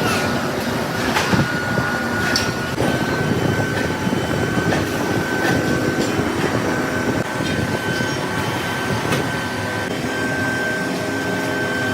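Machine tool cutting metal, running steadily with a constant high whine and a few sharp clicks.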